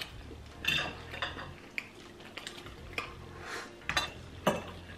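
Knife and fork clinking and scraping against ceramic plates while eating, a string of short sharp clinks about every half second to second, the loudest near the end.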